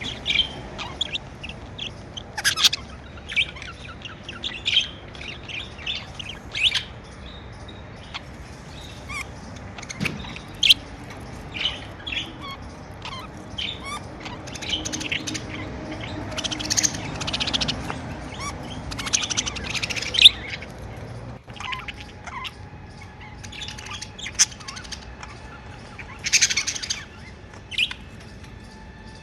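Budgerigars chirping and warbling: many short, high chirps, with denser stretches of chatter about halfway through and again near the end.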